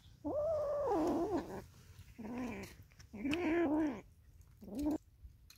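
A cat meowing four times in drawn-out, wavering calls, the first the longest at over a second and the last a short one near the end.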